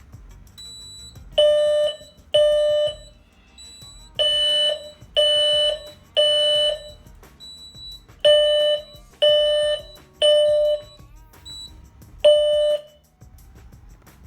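Fire alarm horn sounding the temporal-3 evacuation pattern: three loud half-second blasts, a pause, then three again. A fainter, higher tone sounds in some of the gaps, and the horn stops about 13 seconds in.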